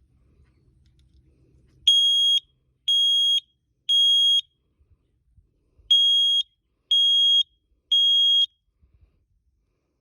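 Kidde smoke alarm sounding: two rounds of three loud, high-pitched beeps, each about half a second, with a pause between the rounds. This is the standard three-beep alarm pattern.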